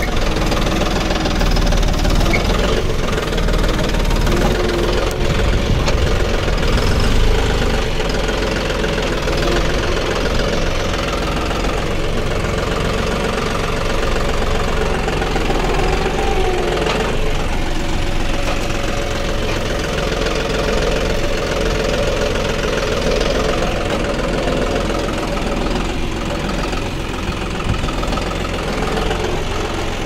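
Tractor diesel engine running steadily close by, pulling a mounted Lemken hydraulic reversible plough through the soil.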